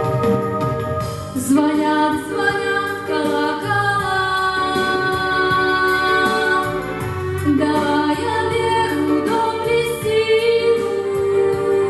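Background music: a woman's voice singing long held notes over instrumental accompaniment.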